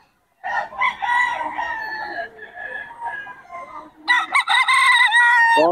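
Gamecock roosters crowing: a fainter crow about half a second in, then a loud, long crow about four seconds in that lasts about a second and a half.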